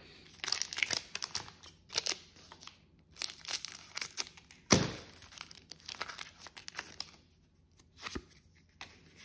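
Foil wrapper of a Pokémon booster pack being torn open and crinkled in short, irregular rips, with one sharp knock about halfway through.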